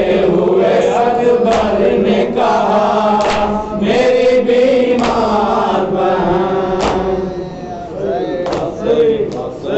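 Men's voices chanting an Urdu nauha (Shia mourning lament), a lead reciter with others joining the refrain. A few sharp slaps of hands on chests (matam) cut through the chanting.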